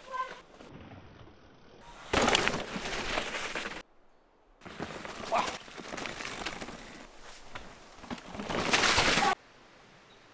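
Mountain bike riding on a dirt trail: rushes of tyre noise and drivetrain rattle as the bike passes, in several separate passes that start and stop abruptly, the last one the loudest before a sudden cut to low hiss.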